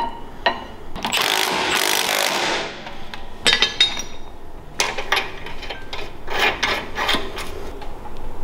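A cordless power tool with a 14 mm socket runs for about a second and a half, driving a bolt on the fork clamp. Scattered clicks and metal clinks of tools on the clamp follow.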